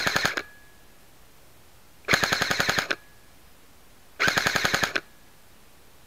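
Battery-powered G&G Combat Machine Raider airsoft M4 firing on full auto in short bursts, each a rapid, even string of shots lasting under a second. The tail of one burst is heard at the very start, then two full bursts about two seconds apart, and another burst begins at the very end.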